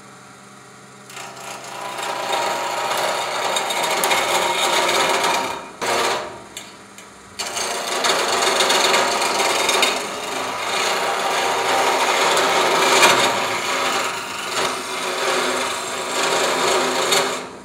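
Wood lathe turning a walking-stick blank while a hand-held turning chisel cuts into the spinning wood: a steady, loud scraping. The cut breaks off briefly about six seconds in, then resumes and stops just before the end.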